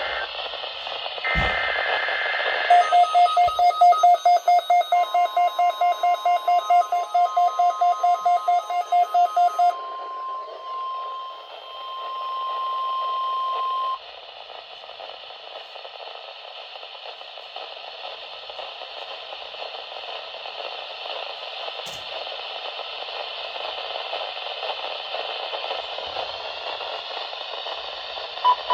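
Weather alert radio sounding an alert over a background of radio hiss: a brief tone burst, then the receiver's rapid alarm beeps, about three to four a second, for about seven seconds. Under the beeps a long steady warning tone, the NOAA Weather Radio 1050 Hz alarm tone, runs until it cuts off about 14 seconds in, leaving static hiss, and pulsed beeping starts again at the very end.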